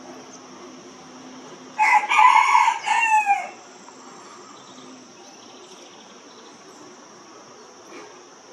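A rooster crowing once, about two seconds in: a crow of about a second and a half that ends in falling notes. A steady high insect drone runs underneath.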